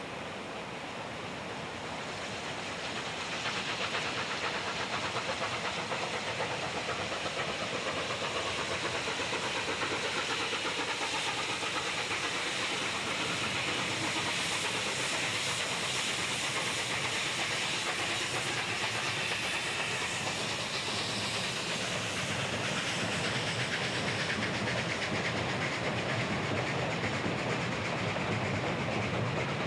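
Durango & Silverton narrow-gauge steam train crossing a steel truss bridge, its locomotive and coaches rumbling and clattering over the rails, over the steady rush of river rapids below. The train grows louder about three to four seconds in and then holds steady.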